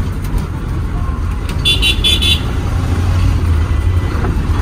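Truck's diesel engine running steadily, heard from inside the cab while driving, with three quick short horn toots about two seconds in.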